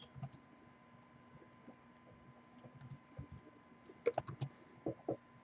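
Faint typing on a computer keyboard: scattered keystrokes, with a quick run of clicks about four seconds in and two more near the end, as numbers are entered into a list.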